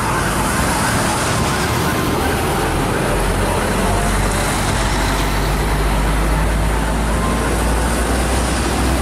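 Mercedes-Benz O500RS tour bus's diesel engine rumbling as it turns across the road, with street traffic noise. A fast warbling siren-like sound fades out over the first couple of seconds.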